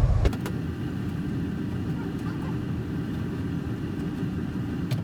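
Steady low rushing from a tank water heater draining, as air is drawn in through its loosened top water lines to let the water run out.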